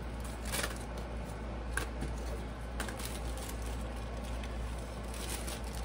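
Soft rustling and a few light clicks as saltine crackers are put into a plastic zip-top bag, over a steady low hum.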